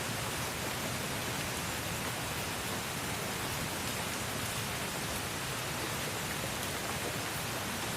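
Steady rain falling, an even hiss of drops on a surface.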